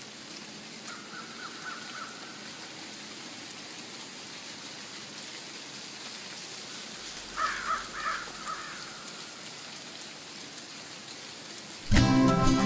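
Faint steady outdoor hiss with a few short bird calls about seven and a half seconds in. Guitar music starts right at the end.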